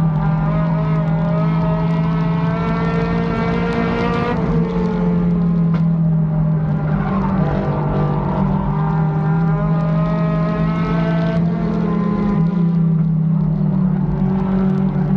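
Race car engine running hard, heard from inside the cockpit. Its pitch climbs for a few seconds, drops about four seconds in, climbs again, and drops again about twelve seconds in as the car lifts and gets back on the throttle around the oval.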